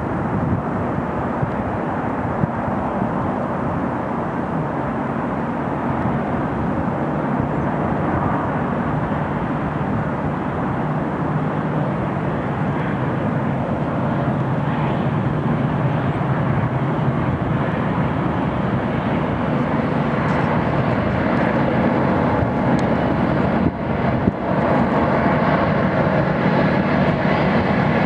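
Freight train rolling past: a steady rumble of wheels on rail. It grows a little louder, and in the last several seconds a low diesel locomotive engine hum comes in under it.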